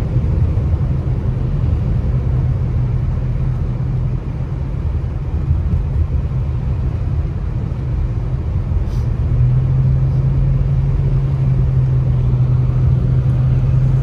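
Steady low road rumble of a car driving, heard from inside the cabin. A steady hum joins it and grows louder about two-thirds of the way in.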